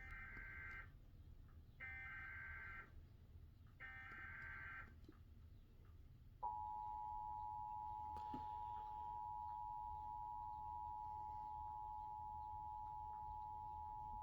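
Emergency Alert System required weekly test: three short bursts of SAME header data, each a harsh digital warble about a second long. About six seconds in comes the steady two-tone EAS attention signal, sounding for about eight seconds.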